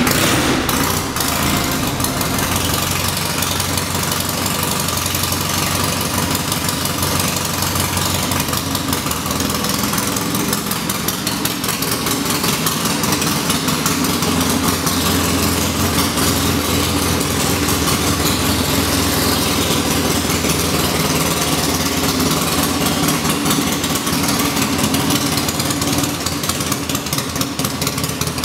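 Triumph parallel-twin motorcycle engine idling steadily.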